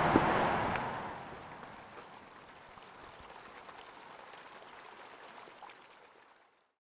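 The Sauk River's flowing water rushing, louder at first and fading down over the first couple of seconds, then faint until it dies away to silence near the end.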